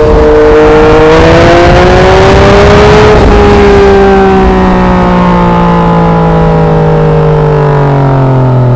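Yamaha MT-09's three-cylinder engine through an SC Project exhaust at road speed. Its note rises under throttle for about three seconds, then drops as the throttle closes and falls steadily while the bike slows on engine braking. Wind rushes over the microphone.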